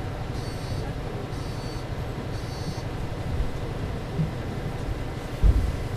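Mercedes-Benz Citaro C2 LE city bus running steadily. Three short high beeps about a second apart come in the first three seconds, and a heavy thump about five and a half seconds in.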